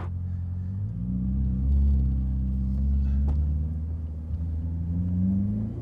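Ferrari 488 Pista's twin-turbo V8 with Fabspeed sport catalytic converters and Valvetronic dual-tone exhaust, heard from inside the cabin while driving: a low, deep drone whose pitch rises a little about a second in and again near the end as the car pulls.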